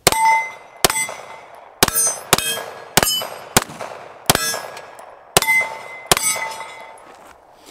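Springfield Armory XD-M Elite OSP 9mm pistol fired about nine times at an uneven pace, roughly a shot a second. Most shots are followed by the ring of steel targets being hit.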